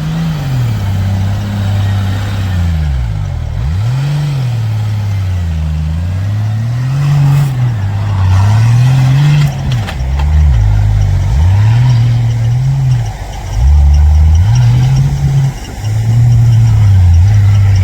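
Off-road 4x4 vehicle's engine revving up and dropping back over and over, about every one to two seconds. It gets louder in the last few seconds.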